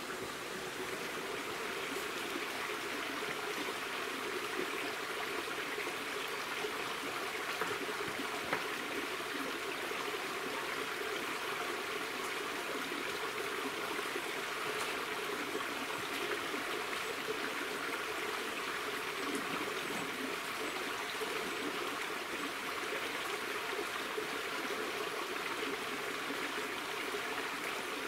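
A small woodland stream running steadily over rocks, with a couple of faint clicks.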